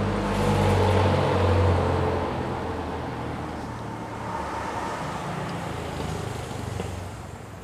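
A motor vehicle's engine running with a low steady hum, loudest in the first two seconds, then slowly fading.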